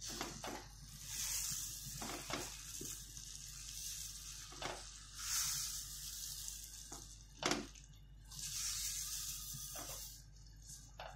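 Dry bulgur poured from a steel bowl into a pot of boiling broth, a hissing pour that swells three times while a wooden spoon stirs. A few sharp knocks against the steel pot, the loudest about two thirds of the way in.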